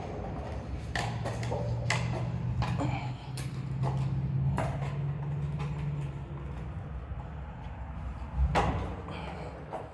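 Footsteps scuffing irregularly on a gritty concrete floor, with a louder knock near the end, over a low steady rumble that fades out about two-thirds of the way through.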